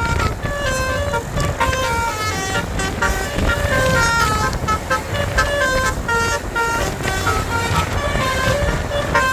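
Basuri telolet bus horn playing a long unbroken tune of quick notes that step up and down, over the low rumble of the bus.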